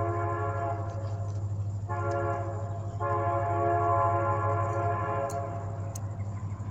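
Train horn sounding two long blasts, a held chord, the second blast longer than the first, over a steady low rumble.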